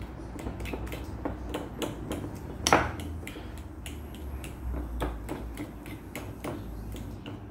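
Metal utensil clicking and scraping against a ceramic bowl while stirring beaten egg into ground meat: quick irregular clinks, with one louder knock about two and a half seconds in.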